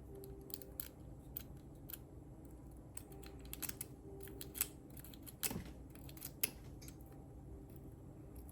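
Small metallic clicks and ticks from handling a 5-pin tumbler lock and its picking tools, irregular and scattered, with a short scrape about halfway through.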